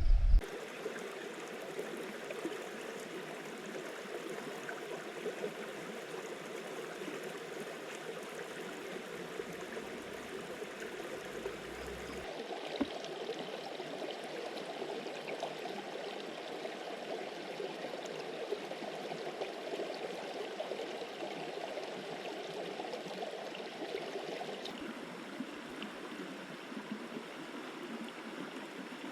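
River water flowing steadily in a continuous rushing stream. Its sound shifts abruptly twice, about twelve and twenty-five seconds in.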